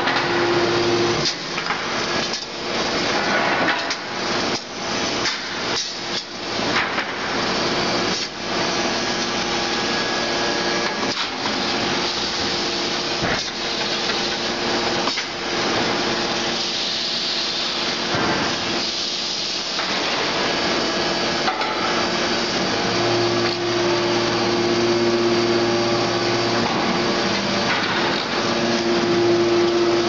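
Aluminum extrusion press running: a continuous hiss of machinery with a steady hydraulic hum, broken by a run of sharp metal clanks and knocks over the first eight seconds. The hum drops away early on and comes back after about twenty-three seconds.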